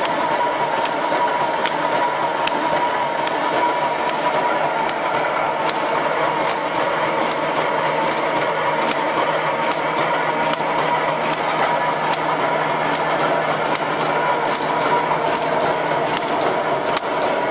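Automatic steel wire mesh welding machine running: a steady mechanical hum and whine with a sharp metallic click repeating about every 0.8 seconds, one for each welding stroke as the mesh advances.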